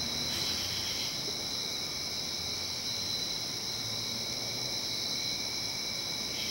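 Crickets trilling in a steady night chorus of several unbroken high-pitched tones, with another trill joining briefly about half a second in.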